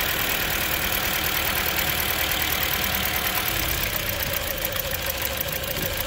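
A 2008 Toyota Corolla's four-cylinder engine idling roughly with a misfire, running on three of its four cylinders. About two-thirds of the way through it becomes more uneven as an ignition coil is unplugged for a cylinder drop test.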